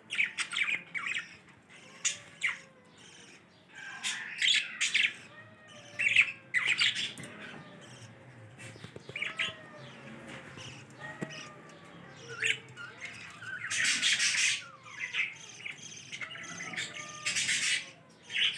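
Budgerigars chirping and squawking in short, irregular calls, with a few longer, harsher squawks about two-thirds of the way through and again near the end.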